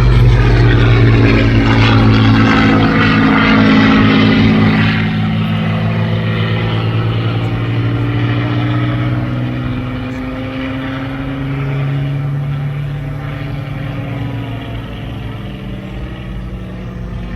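Hawker Hurricane's Rolls-Royce Merlin V12 piston engine on a display pass, loud at first, then dropping slightly in pitch and fading as it flies away.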